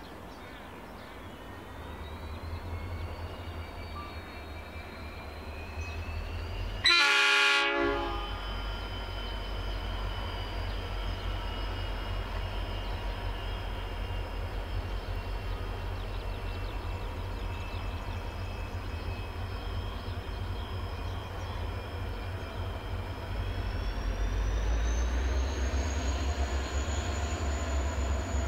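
Idling diesel locomotives of a freight train, a Pacific National G-class leading two XR-class units, give one horn blast of about a second, about seven seconds in. Near the end the engines rise in pitch and get louder, with a rising whine, as they are throttled up to move the grain train off.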